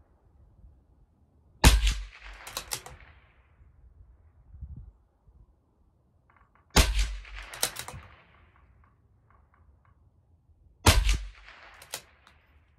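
Three loud shots from a CZ 457 LRP bolt-action .22 LR rifle firing hot Aguila Interceptor fouling rounds, about four to five seconds apart. Each crack is followed within a second by a few short clacks of the bolt being worked.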